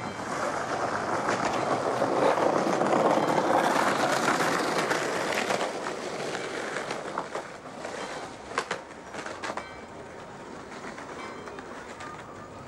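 Several skateboards' wheels rolling on a paved sidewalk, a noisy rumble that is loudest about two to five seconds in and then fades as the boards move off, with a few sharp clacks after the middle.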